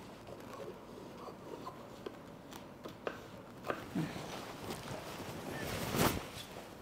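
Fabric being handled on a work surface: soft rustling with scattered light clicks and taps, and a louder rustle about six seconds in.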